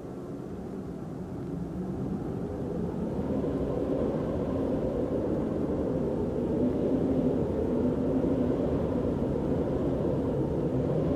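Low rumbling drone from an animated film's soundtrack, swelling over the first few seconds and then holding steady.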